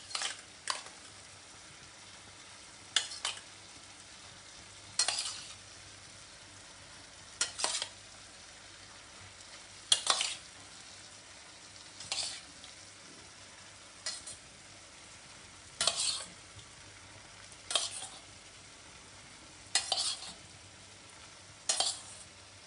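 Spoon stirring raw prawns into a sizzling vindaloo masala in a pan: a short scraping stroke about every two seconds over a faint steady sizzle.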